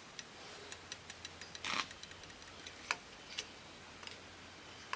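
Light, scattered clicks and taps of metal on metal, with one short scrape a little under two seconds in: hand tools working at a gunk-filled hole in an old drill press's parts.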